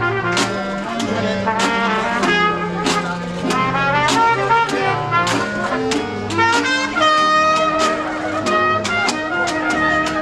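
Small live jazz band playing: clarinet and trumpet carry the melody over guitar and upright bass, with a steady percussive beat.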